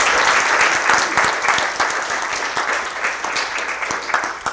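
Audience applauding, the clapping dense at first and gradually thinning out toward the end.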